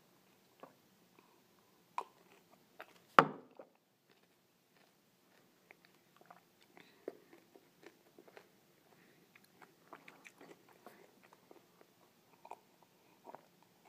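Close-up mouth sounds of a person chewing a chili pepper and sipping milk, made up of scattered small wet clicks, with one sharp knock about three seconds in.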